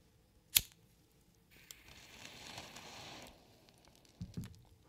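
A single sharp click about half a second in, then a faint hiss lasting about two seconds, and two soft low thumps near the end.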